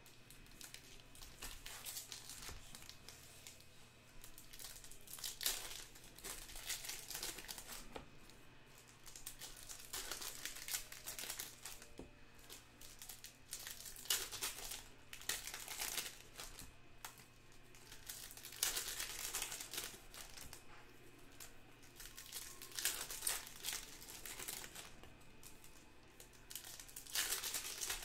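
Foil wrappers of Topps Stadium Club baseball card packs crinkling and tearing as they are opened and handled. The noise comes in repeated irregular bursts with short pauses between them.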